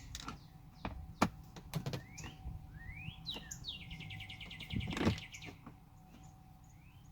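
Birds chirping, with short rising notes and a rapid trill about four seconds in. Under them come several sharp clicks and a knock from screwdriver and hand work on a car door panel while the screws holding the inside door handle come out.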